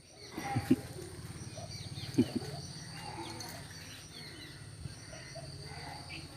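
Small birds chirping in the background over a steady low hum, with a few brief, louder low sounds within the first few seconds.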